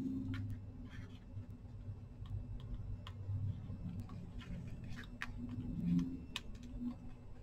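Paper being handled: scattered light clicks and rustles as a paper cut-out is fitted into an envelope pocket on a collage page, over a faint low hum.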